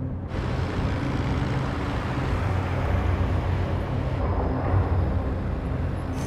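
Heavy mining machinery and large haul trucks running: a steady low rumble under a broad hiss, cutting in suddenly just after the start.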